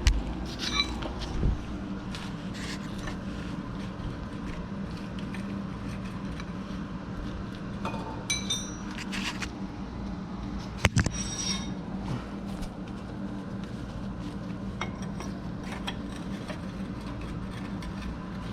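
Scattered metal clinks and knocks of hand tools, with one ringing clink about eight seconds in and a sharp knock about eleven seconds in, over a steady low hum.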